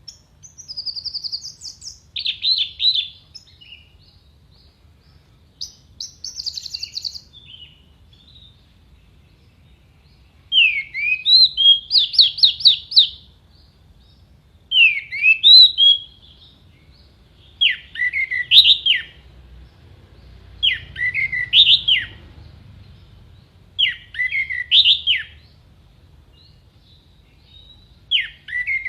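Orange-headed thrush (anis merah) singing: short, sharp whistled phrases repeated every two to three seconds, the ones in the second half loudest.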